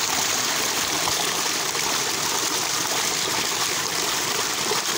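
Steady rush and splash of water gushing from a solar pump's 5-inch PVC delivery pipe into a concrete tank, the pump running at full flow.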